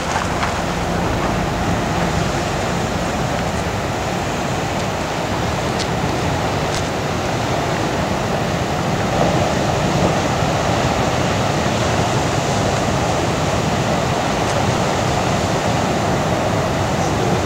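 Ocean surf: large waves breaking and washing in as a steady rush of noise.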